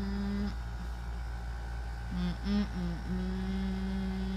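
A low, steady humming tone over a faint background hum. It breaks off early, comes back as three short notes that slide in pitch about two seconds in, then holds steady again.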